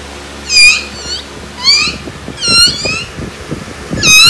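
A small dog making short, high-pitched squeaky whines, about five of them roughly a second apart. Light tapping and scuffling from movement runs underneath in the second half.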